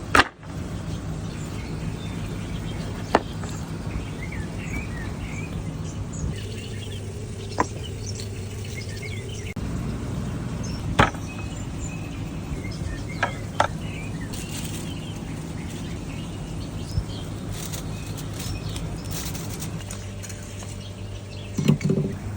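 Outdoor ambience: birds chirping over a steady low hum, with a few sharp clicks or knocks spread through it and a louder knock near the end.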